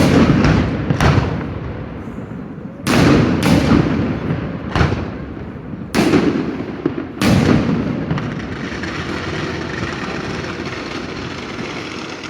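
Firework shells bursting in the sky: about seven loud bangs, each followed by a rumbling echo, in pairs and singles over the first seven seconds, then a steady noise that slowly fades.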